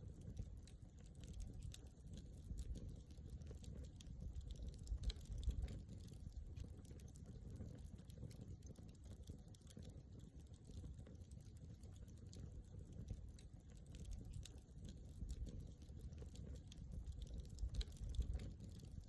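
Wood campfire crackling softly, with scattered small pops and clicks over a low rumble.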